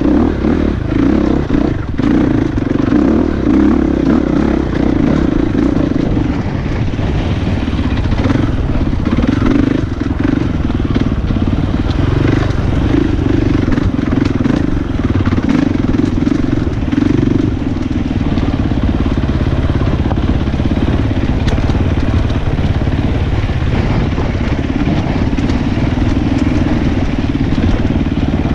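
Husqvarna 450 dirt bike's single-cylinder four-stroke engine running continuously while ridden along rocky singletrack, its note rising and falling with the throttle.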